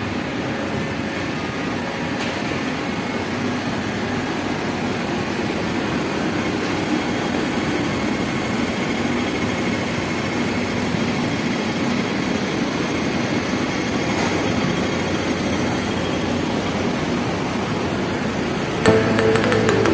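Steady city street ambience: an even hum and rumble of urban background noise, growing slightly louder as it goes. Near the end it changes suddenly to a steadier hum with a few clicks.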